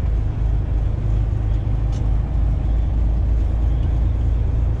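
Tractor-trailer truck driving, heard from inside the cab: a steady low rumble of engine and road noise.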